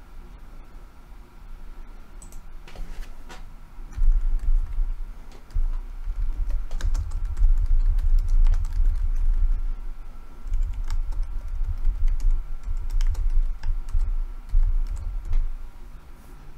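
Typing on a computer keyboard: a run of separate keystroke clicks, with a low rumble underneath from about four seconds in until near the end.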